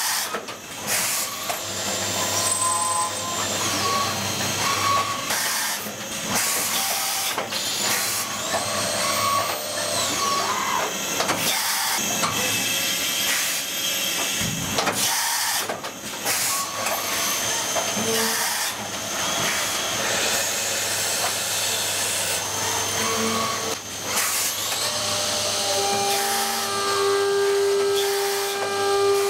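Three-spindle PORTACENTER CNC machining centre milling brass parts: spindles whining as they speed up and slow down, over a steady hiss of coolant spray, with scattered short knocks.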